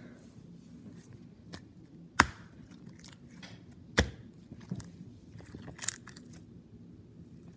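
Orange putty slime being rolled, squashed and stretched by hand, making soft squishy crackles with a few sharp pops, the loudest about two seconds in and another at four seconds.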